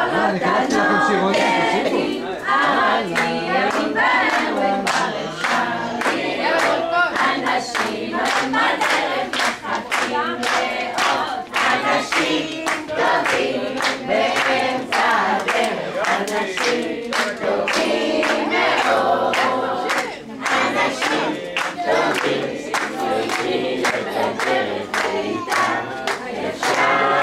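A group of young children singing a song together in unison, with steady rhythmic hand clapping keeping the beat.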